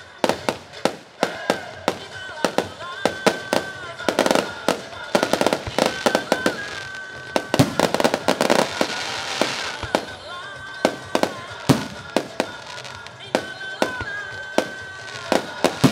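A fireworks display firing aerial shells in quick succession: sharp bangs, several a second, with a hissing crackle about halfway through. Music plays underneath the bursts.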